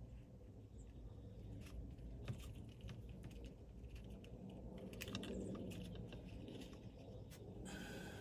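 Faint scattered small clicks and ticks of hands handling wires and a plastic connector, as terminal pins are moved into a new CAN bus STAR connector.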